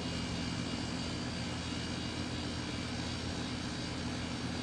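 Steady mechanical drone from running machinery: a constant low hum with a hiss of moving air over it, unchanging throughout.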